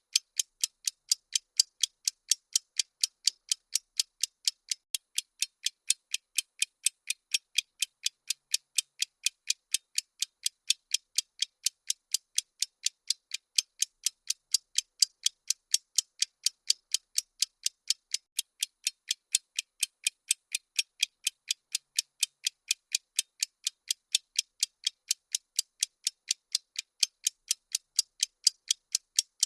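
Bomb countdown timer ticking sound effect: crisp, evenly spaced high ticks, several a second, with nothing else under them.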